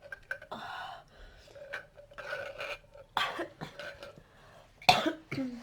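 A person hiccuping: three short, sharp gulps in the second half, the loudest about five seconds in, the last with a falling voiced tail, after two longer breathy sounds earlier.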